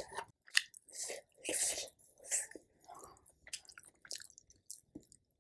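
A person chewing food close to the microphone: a string of irregular wet mouth sounds, busier in the first half and thinning out toward the end.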